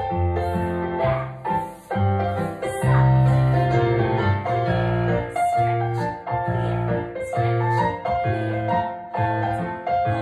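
Piano accompaniment for a ballet class exercise, a steady, regular tune with a clear beat.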